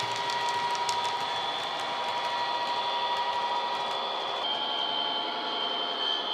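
Model Class 57 diesel locomotive's DCC sound, a Coastal sound file played through small speakers, running with a steady engine whine. The whine changes pitch about four and a half seconds in. Faint clicks of the train's wheels on the track come in the first second.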